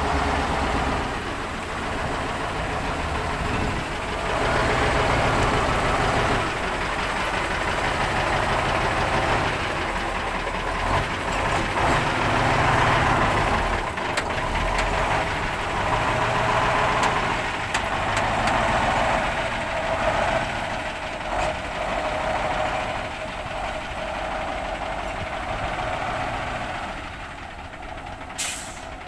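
Kato truck crane's diesel engine running as the crane is driven into position, its level swelling and easing, then settling lower near the end. A brief hiss sounds just before the end.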